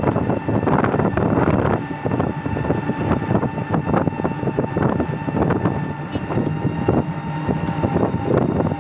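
Wind buffeting the microphone of a moving vehicle, rising and falling in gusts, over steady engine and road noise.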